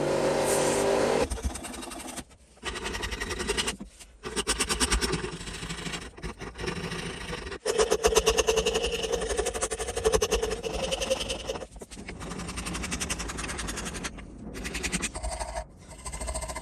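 A bench belt sander runs for about the first second, then stops. After that a round file is worked back and forth over a wooden plane handle held in a vise, filing the old varnish off. The filing comes in runs of quick rasping strokes with short pauses between them.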